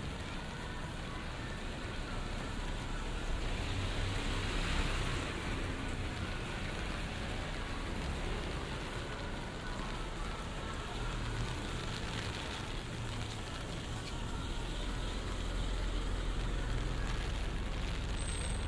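Steady hiss of light rain on a wet city street, with the low hum and wet tyre hiss of slow-moving vehicles.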